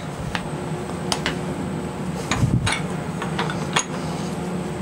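Metal clicks and taps, about half a dozen sharp ones with a dull thump midway, as a metal workpiece is set on parallels in a machine vise and the vise handle is worked to clamp it. A steady low hum runs underneath.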